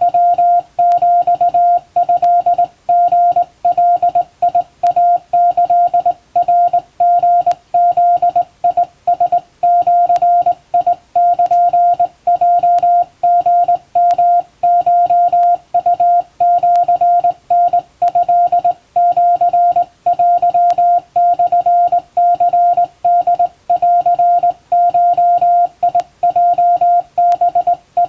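Japanese Wabun Morse code sent by hand on a straight key: a single steady beep switched on and off in a continuous run of short and long elements, with brief gaps between characters.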